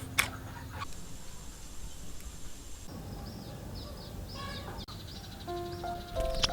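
Birds chirping in quick, short, falling calls that repeat over the second half. Soft background music with sustained notes comes in near the end.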